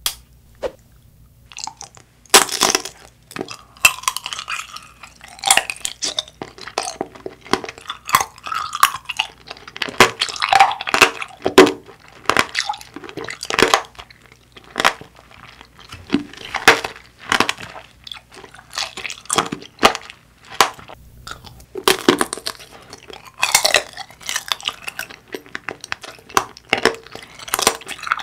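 Shine Muscat grape tanghulu being eaten close to the microphone: the hard sugar shell cracks and crunches in a long run of irregular bites and chews.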